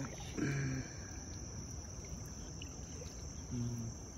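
Steady, high-pitched drone of insects, with a few short vocal sounds from people nearby.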